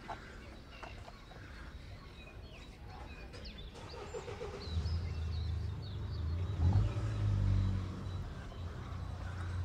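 A motor vehicle's engine running low and steady, coming in about halfway through and loudest shortly after, over quiet street ambience with a few small clicks and faint high chirps.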